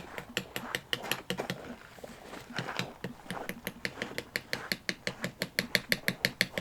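A rock hammering a tent stake into the ground: a string of sharp clicks, scattered at first, then a fast steady tapping of about five strikes a second from about four seconds in.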